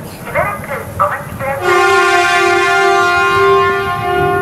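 A train horn sounds one long, steady note starting about one and a half seconds in, after a few brief voice-like calls.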